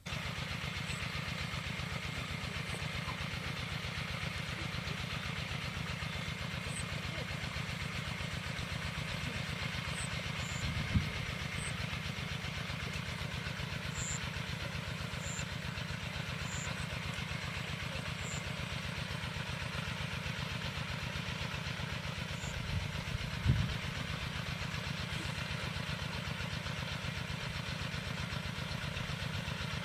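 A small engine running steadily with a fast, even beat, with two brief louder knocks, one about a third of the way in and one past the middle.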